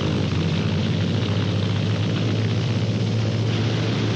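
Propeller-driven piston-engine aircraft running at a steady drone: a low, even hum with a noisy wash over it.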